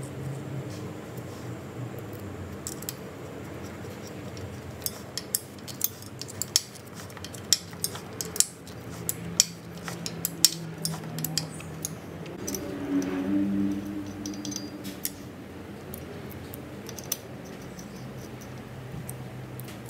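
Hex key clicking and clinking against the steel grub screws and bearing cassettes on a go-kart's rear axle as the screws are tightened and locked off: a run of sharp metallic clicks, mostly in the middle of the stretch.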